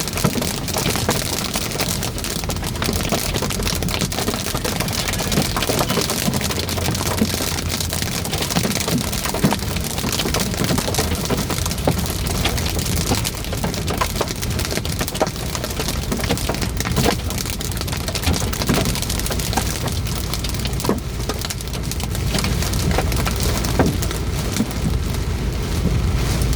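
Heavy rain and hail pelting a car, a dense steady hiss with many sharp knocks of hailstones striking the body and glass.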